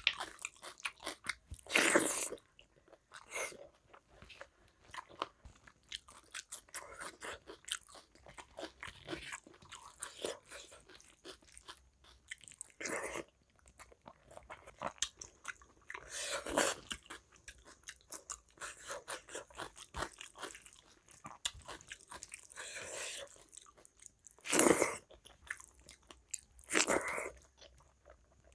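Close-miked eating sounds: wet chewing and mouth smacks of rice and curry eaten by hand, with fingers squishing rice and gravy on the plate. Several louder bursts stand out among the irregular small clicks.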